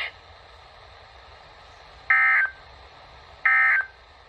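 Two short bursts of NOAA Weather Radio SAME digital data tones, about a second and a half apart, over faint radio hiss. This is the harsh electronic end-of-message code that closes an alert broadcast.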